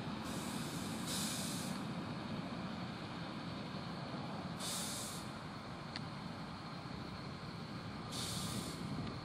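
Steady low rumble of distant airport traffic, with three short bursts of high hiss, about a second in, near the middle, and near the end.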